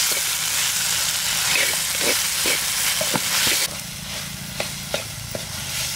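Tomatoes and onions frying in a clay pot, sizzling, while a metal spoon stirs and scrapes against the pot. The sizzle drops sharply about two-thirds of the way through, leaving the spoon's knocks and scrapes louder than it.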